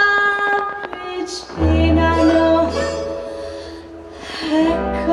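Music with singing: an Italian song with long held notes over a bass line that drops out about a second and a half in and returns.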